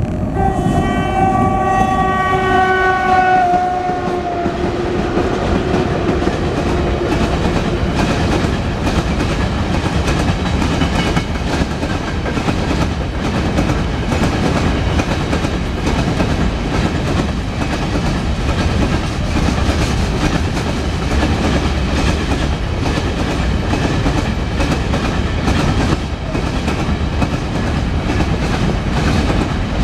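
An electric freight locomotive sounds its horn for about four seconds, the chord dropping slightly in pitch as it passes. Then a long train of open gondola wagons rolls by with a steady wheel rumble and a rhythmic clickety-clack.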